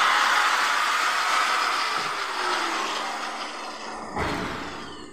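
A motor running, its noise fading steadily over several seconds, with a short knock about four seconds in.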